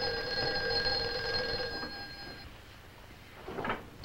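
Telephone bell ringing: one steady ring of about two and a half seconds that stops, then a pause before the next ring begins at the end.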